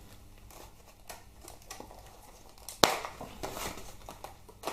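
Small parts and packaging being handled on a workbench: light clicks and rustling, with one sharp click a little under three seconds in.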